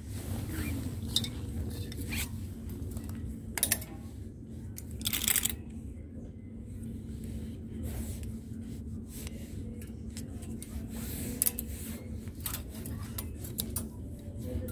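Metal hanger hooks clinking and scraping on a steel clothes rail as hangers are moved: a few separate clicks and one longer scrape about five seconds in, over a steady low background hum.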